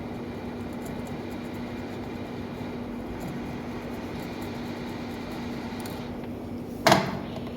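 Steady whirring of a fan or blower with a low hum. A single sharp clack comes near the end.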